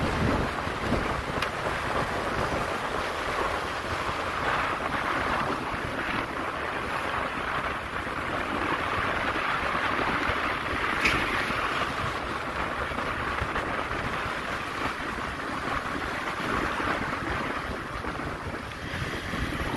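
Steady wind rushing over the microphone, an even noise with no clear engine note or voice.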